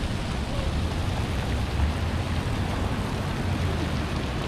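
Wind buffeting the camera microphone: a steady, uneven low rumble over a continuous hiss, with no distinct events.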